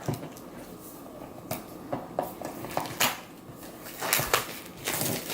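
Cardboard packaging of an Apple Watch Nike+ being handled and opened: a few light taps and clicks, then short scraping, sliding rustles about three and four seconds in.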